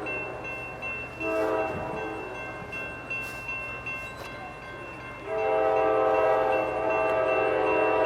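Multi-chime air horn of a CSX GE AC4400CW diesel locomotive leading a freight train. It gives a short blast about a second in, then a long held blast from about five seconds in.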